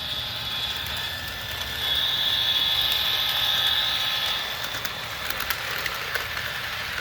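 Sound decoder of an HO scale Atlas Dash 8-40CW model diesel locomotive playing a long horn blast through its small onboard speaker over a steady engine rumble. The horn swells louder about two seconds in and cuts off at around four and a half seconds, followed by light clicks.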